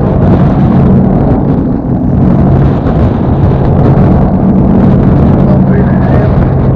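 Boat engine running steadily with a low hum.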